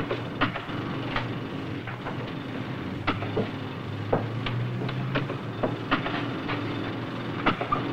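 Heavy machinery running with a steady low hum, broken by irregular sharp knocks and clanks: the background of a construction site.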